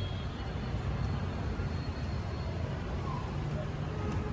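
Steady low background rumble with a faint hiss, with no distinct events.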